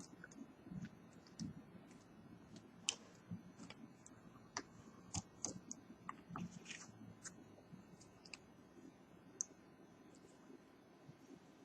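Faint, irregular small clicks and taps of plastic prying cards and picks being worked around a phone's glass.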